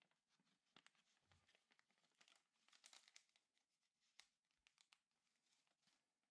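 Faint rustling and crinkling of paper being handled and creased while folding an origami unit, with scattered soft crackles and ticks.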